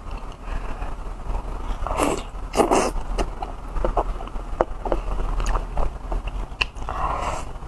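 Close-miked eating of soft braised pork belly and rice: wet biting and chewing with short smacks and clicks, the loudest bursts about two seconds in and near the end, over a steady low hum.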